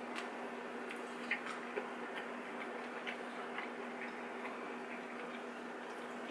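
Faint, irregular clicks and taps of two people eating dumplings, over a steady low hum.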